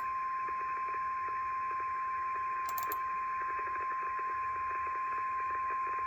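NOAA Weather Radio's 1050 Hz warning alarm tone, one steady pitch over radio hiss, heard through the receiver's speaker as it signals an incoming tornado warning. A few faint clicks sound over it.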